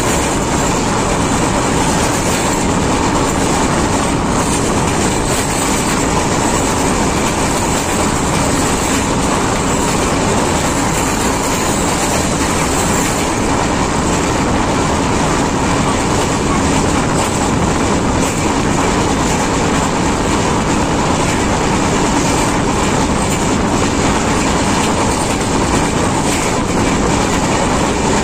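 Passenger express train running at speed, heard at an open coach door: a steady loud roar of steel wheels rolling on the rails over a long bridge.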